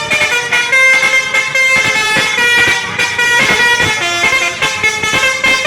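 Bus telolet horn, a Basuri multi-tone musical horn, playing a quick melody, its notes changing several times a second.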